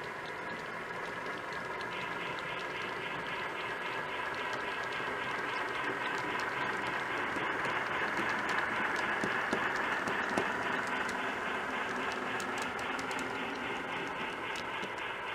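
Model freight train rolling past: a steady running sound of wheels on the track with a fast, regular clicking. It grows louder as the cars pass closest, about eight to ten seconds in, then eases.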